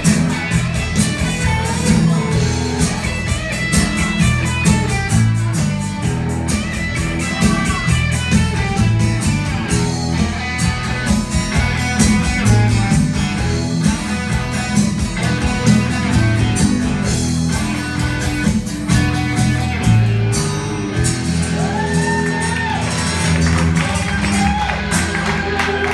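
Small band playing live rock: electric guitar, acoustic guitar, electric bass and drums over a steady beat, with bending harmonica lines near the end.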